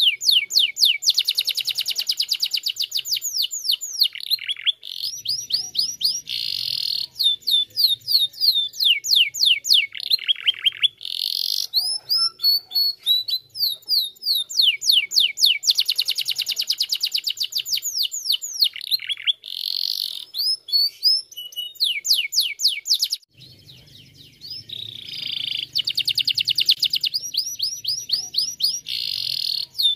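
Domestic canary singing a long, loud song of fast trills and rapidly repeated sweeping notes, broken by short gaps and one brief pause about three-quarters of the way through.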